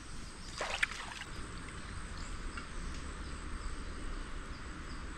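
Water splashing around a small homemade kayak, with one louder splash just under a second in and then steady lapping and trickling.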